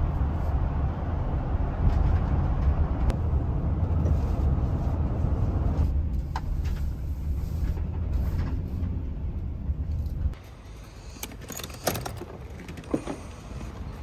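Road and engine noise inside a moving car's cabin: a steady low rumble that cuts off abruptly about ten seconds in. A few short clicks and knocks follow.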